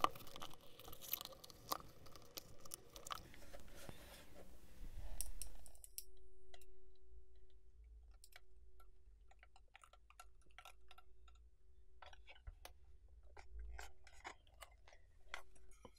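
Faint sticky crackling as the metal lid of a Bosch EDC15 engine control unit is pried and pulled apart from its base, with the soft sealant bead stretching and tearing. After about six seconds it gives way to scattered light clicks of the housing being handled.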